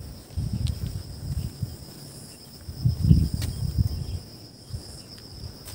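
Insects, crickets or cicadas, trilling in a steady high drone, with irregular low thumps and rumbles, the loudest about three seconds in.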